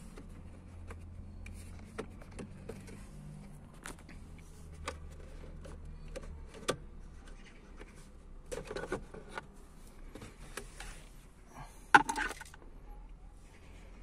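Hard plastic clicking, knocking and scraping as the lower plastic steering column cover of an Opel Vectra B is worked loose and pulled off, with the sharpest knock about twelve seconds in. A low hum underneath fades out about halfway through.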